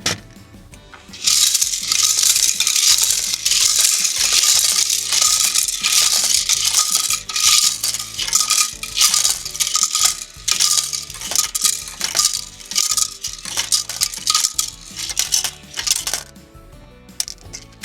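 Diecast metal model truck being handled: small metal parts clinking and rattling in quick, irregular clicks, stopping about two seconds before the end.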